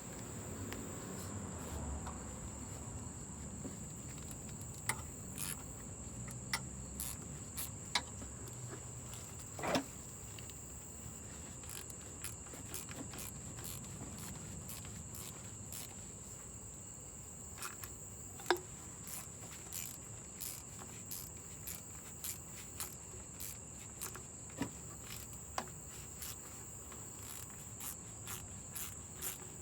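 Crickets trilling steadily in a high, even note, with scattered sharp clicks and taps that come more often in the second half.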